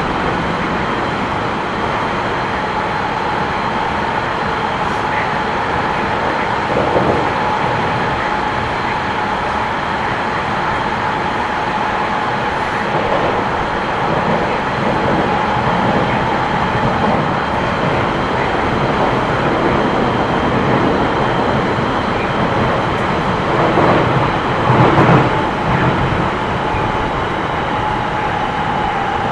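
Odakyu 1000 series electric commuter train running between stations, heard from inside the car: a steady rumble of wheels on track with a steady high tone over it. A few louder knocks come near the end.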